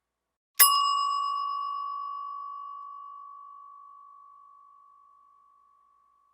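A metal bell struck once, about half a second in. Its bright high overtones die away within a couple of seconds, while one clear steady tone rings on and fades out slowly over about five seconds.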